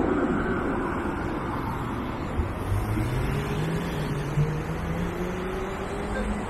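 Street traffic: a road vehicle's engine rising steadily in pitch as it pulls away, over a constant hum of city noise.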